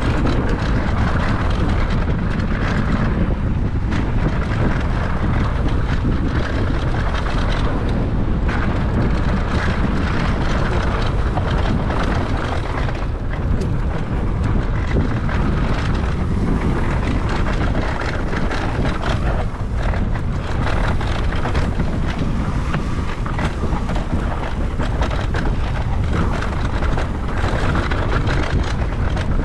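Wind buffeting the microphone, a steady loud rush, as a mountain bike is ridden along a dirt trail.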